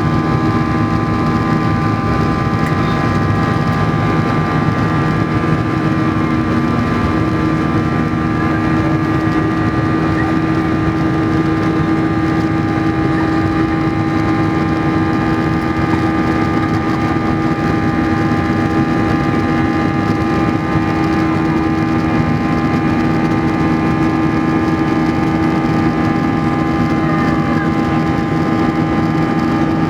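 Steady cabin noise of a Boeing 737-800 with its CFM56 turbofan engines running: an even rushing drone with several fixed whining tones, unchanged throughout.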